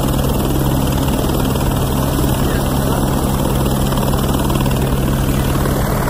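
Loud, steady engine drone with a constant low hum and a wash of noise, unbroken throughout.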